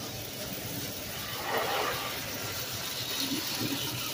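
Pre-war Lionel toy trains running on tubular three-rail track: a steady rolling whir from the motors and wheels, swelling briefly about a second and a half in.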